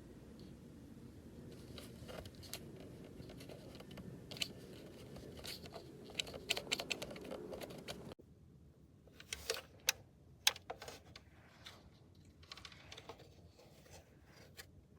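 Faint handling noise: irregular light clicks and rustling, with the background dropping abruptly about eight seconds in and a few sharper clicks after.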